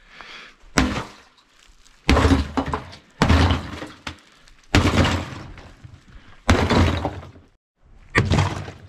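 Hatchet chopping through a sheet of ice on a galvanized steel stock tank of water. There are six blows, each a sudden crack as the ice breaks, coming about every one to two seconds.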